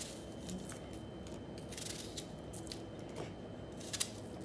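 Kitchen knife cutting onion chunks off into a blender cup: a few faint, scattered clicks and cuts, the loudest near the end.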